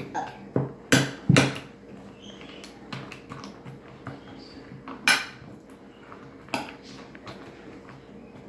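A metal utensil clinking against a dish as a casserole mixture is stirred and chopped: three sharp clinks in the first second and a half, then two more about five and six and a half seconds in.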